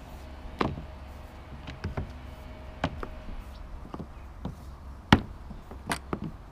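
Scattered sharp knocks and clicks as electrical wiring is pulled up and out of a through-deck fitting at the mast base, the cables and fitting knocking against the fiberglass deck; the loudest knock comes a little past five seconds in.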